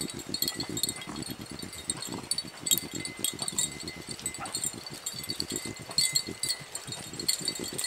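Beagles snuffling rapidly with noses to the ground while trailing scent, a quick run of short sniffs, with a high light tinkling over it.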